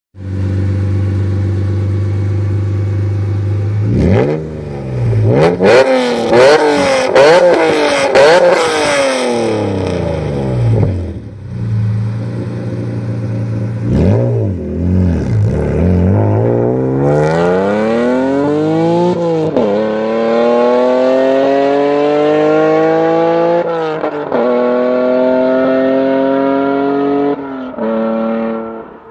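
Honda NSX V6 through a freshly built Comptech exhaust with a Taitec GT009 muffler, loud. It idles, is blipped sharply several times, settles back to idle, is blipped again, then pulls up through the revs with two upshifts before it cuts off.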